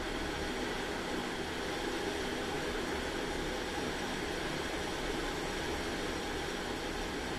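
Storm wind rushing steadily, with a fluttering low rumble as it buffets the phone's microphone.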